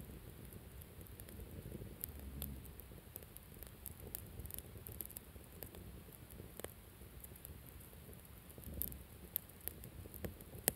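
Wood campfire crackling: irregular sharp pops and snaps over a low, uneven rumble, with a busier run of louder pops near the end.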